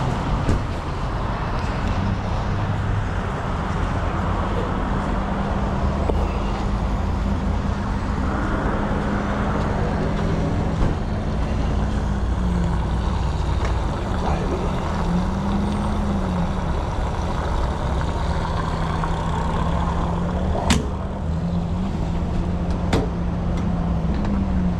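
Truck engine and road noise inside the cab while driving: a steady low rumble with the engine's hum shifting in pitch a few times as speed changes, and two sharp clicks near the end.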